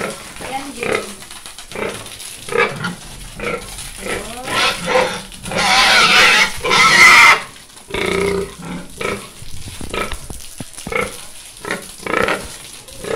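Pigs grunting repeatedly while being hosed down with water, with a louder, harsh stretch lasting about two seconds midway.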